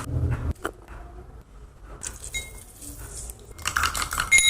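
A metal spoon clinking against a drinking glass, the glass ringing after each strike. The clinks are light at first and louder in the last second or so.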